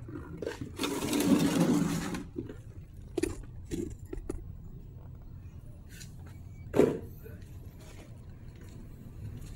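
Handling noises while preparing for a motorcycle oil change: a loud rustle and scrape about a second in, then several knocks, one louder thump near the end, over a low steady rumble.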